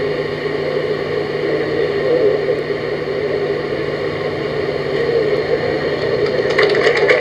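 Steady whirring noise with a low hum from a television broadcast's background sound, picked up off the TV set. Near the end a dense crackling of many small clicks begins.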